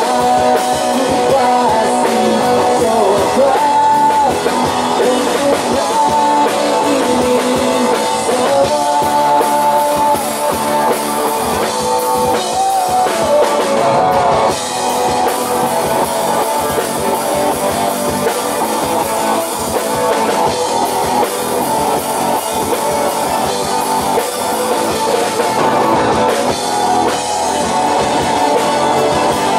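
Live rock band playing: electric guitars, drum kit and keyboard, with a lead melody that slides and bends in pitch through roughly the first half.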